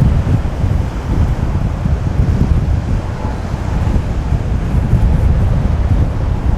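Strong wind buffeting the microphone in a steady low rumble, with ocean surf and breaking waves beneath it.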